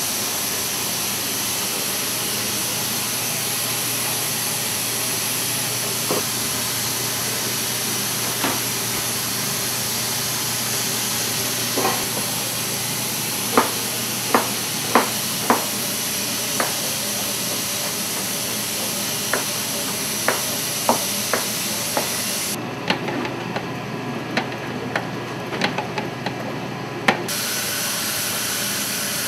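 Steady hiss of kitchen background noise, with scattered sharp taps and clicks of a metal spatula against a steel mixing bowl and cake stand while frosting is scraped and spread, coming in quick runs through the middle and later part.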